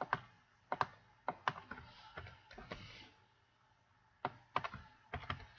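Computer keyboard keys and mouse buttons clicking as numbers are typed into a dialog and boxes are ticked: scattered single clicks and short runs of keystrokes, with a pause of about a second after the middle.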